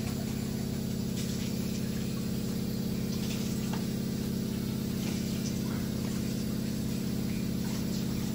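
Steady low mechanical hum made of several pitches with a fast, even pulse, with a few faint clicks as the metal hot sandwich maker is closed and its handles latched.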